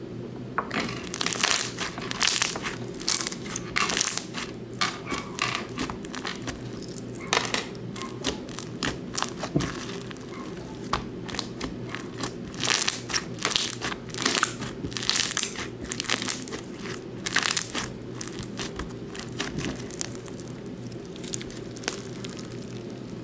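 Slime being squished, pressed and stretched by hand, with an irregular run of sharp little clicks and pops. A steady low hum runs underneath.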